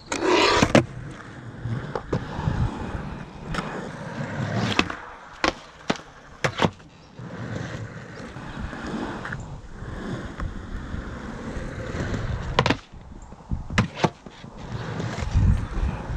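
Hard skate wheels rolling in a continuous rumble, broken by sharp clacks and knocks about ten times as the wheels and deck hit and land.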